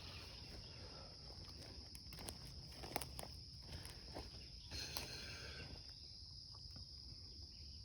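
Footsteps rustling and crunching through weeds and brush, with a few scattered clicks. A faint, steady, high-pitched chorus of insects runs underneath.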